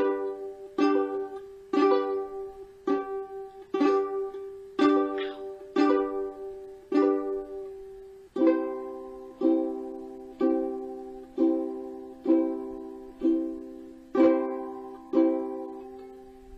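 Kala Ukadelic soprano ukulele strummed in single slow chord strokes, about one a second, moving to a different, lower chord about halfway through; the last chord rings and fades out.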